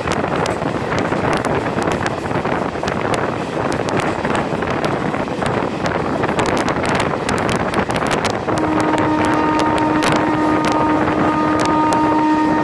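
Passenger train running at speed, heard from an open coach door: wheel clatter with many sharp clicks and wind rushing on the microphone. About eight and a half seconds in, the hauling WAM-4 electric locomotive's horn starts and holds one steady multi-toned blast.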